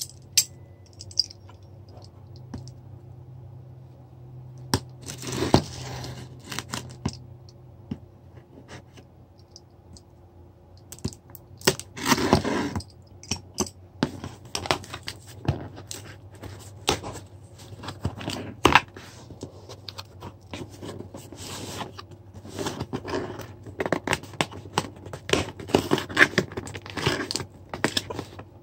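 A knife cutting open a cardboard box: scattered scraping and tearing with sharp clicks, coming in short bursts.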